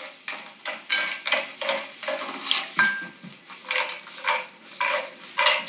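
Croutons going into a frying pan and being stirred about with a utensil: irregular clatters and scrapes against the pan, with one short metallic ring about three seconds in.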